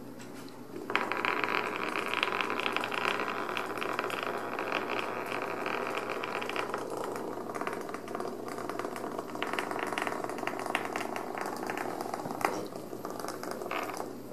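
Organza drawstring bags rustling and crinkling as kittens paw, pounce and scrabble among them on a hardwood floor, a dense crackle of small clicks and scratches. It starts suddenly about a second in, eases a little over halfway through, and has one sharp click near the end.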